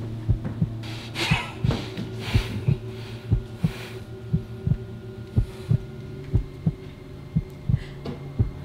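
Heartbeat sound effect: a low double thump about once a second, over a steady low hum.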